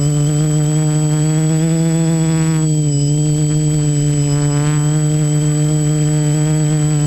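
Multirotor drone's electric motors and propellers humming steadily, heard from the camera on board; the pitch dips briefly about three seconds in.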